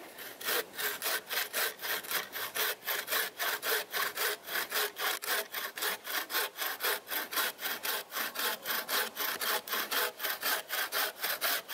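Hand-made wooden bow saw cutting through a log with quick, even back-and-forth strokes, about four a second. The blade is tensioned with paracord, which the maker feels is still not quite tight enough, since the blade bows in the cut.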